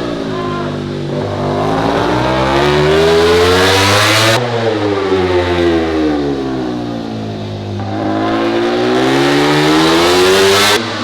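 MotoGP race motorcycles passing at speed, two in turn: each engine climbs in pitch as it approaches under acceleration, then cuts off sharply and falls away as it goes by, the first about four seconds in and the second near the end.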